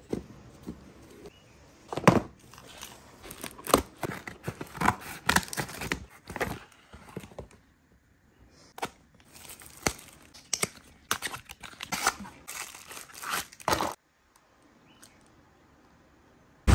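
Packaging being opened by hand: a cardboard box and the plastic wrap around a fluted metal tart tin crinkle, tear and rustle, with many sharp irregular clicks and taps. The handling stops about two seconds before the end.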